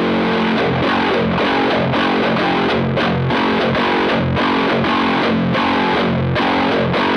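Electric guitar played through a Fender Hot Rod Deluxe IV tube combo amp with heavy distortion: a rhythmic riff of chords, broken by short gaps about twice a second.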